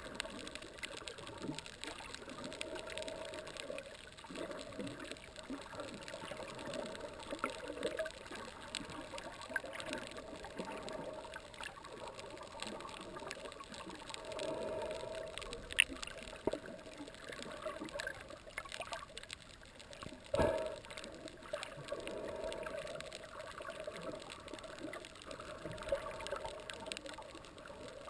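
Underwater ambience picked up by a submerged camera: water moving against the housing under a dense, steady crackle of tiny clicks. There is one sharp click about sixteen seconds in and a louder knock about twenty seconds in.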